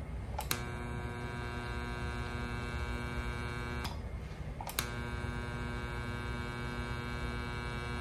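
A 10-kilovolt, 60 Hz AC high-voltage transformer buzzing with mains hum as it drives an arc through a candle flame between two electrodes. The buzz cuts out twice for about a second, at the start and about four seconds in, with a click each time the power switches off or back on.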